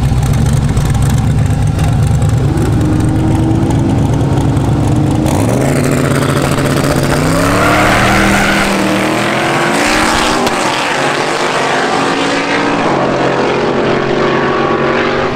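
Two V8 drag cars, a twin-turbo Camaro and an LS-swapped Dodge Coronet, rumbling at the starting line, then launching side by side about five seconds in. The engine note climbs in pitch, drops back at each gear shift and climbs again as the cars pull away down the strip.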